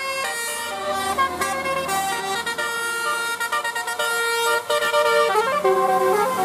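Bus telolet horns playing a melody: several horn tones sound together as chords, stepping up and down in pitch from note to note, with quick notes at first and longer held notes later.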